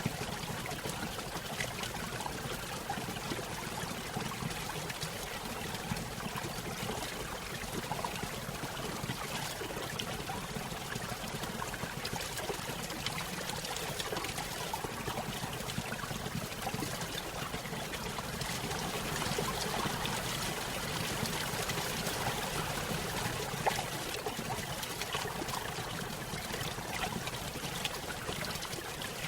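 Small stream running over a little waterfall: steady trickling and splashing of water.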